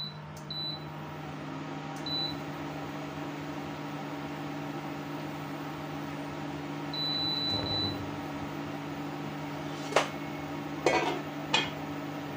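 Kitchen appliance humming steadily, with short electronic beeps from its buttons near the start and a quick run of four beeps just past the middle. Three sharp knocks come near the end.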